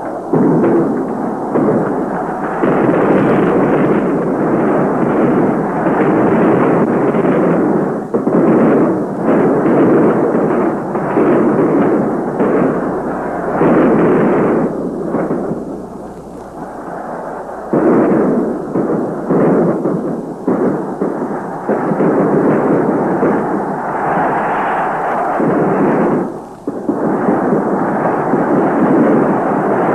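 A large football stadium crowd roaring, swelling and falling in waves, on an old 1962 film soundtrack.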